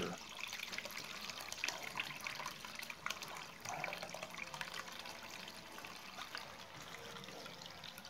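Water trickling and dripping out of a Bosch front-load washer's drain-pump cleanout into a plastic bag over a bucket: the drum is being drained by hand because the washer will not pump out (E13 code).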